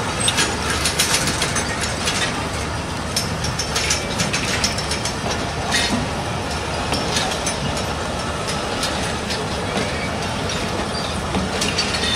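Passenger coaches of a departing express train rolling slowly past on the track: a steady rumble with many irregular sharp metallic clicks and clanks from the wheels, bogies and couplings.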